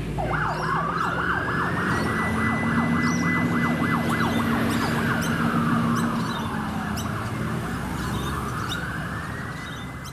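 Emergency vehicle siren with a rapid yelp of about five sweeps a second for the first few seconds, together with a slower wail that rises, holds, falls and rises again near the end. A vehicle engine runs beneath it.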